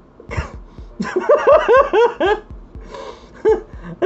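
A person laughing in disbelief: a quick run of short 'ha' bursts from about one to two and a half seconds in, with a few more breathy laughs before and after.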